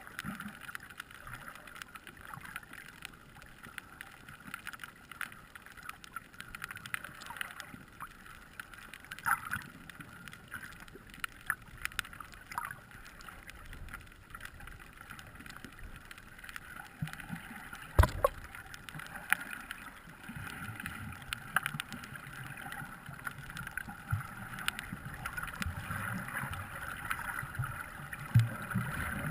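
Muffled underwater water noise heard through a submerged camera housing, with scattered small clicks and crackles and one sharper click about 18 seconds in. Low sloshing rumbles build near the end.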